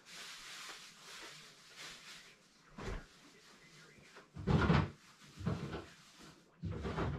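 A soft hiss for about the first two and a half seconds, then four dull knocks and thuds from someone moving about a kitchen off camera, the loudest a little past halfway.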